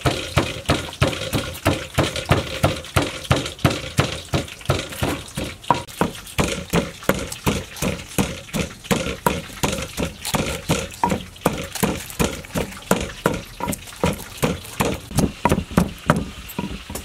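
Wooden pestle pounding in a mortar, crushing a paste in a steady rhythm of about three strokes a second.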